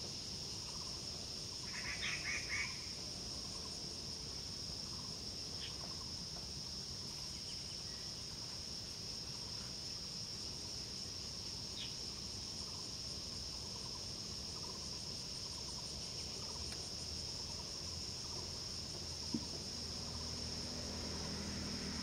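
Steady high-pitched drone of insects, with a short burst of bird calls about two seconds in and a single click near the end. A low engine hum starts to build in the last few seconds.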